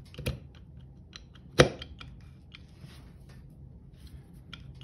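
Metal clicks and ticks of a tractor clutch basket being turned by hand on its shaft, its steel and friction discs shifting as it works down over the sealing rings into place. There is one sharp, louder clack about a second and a half in.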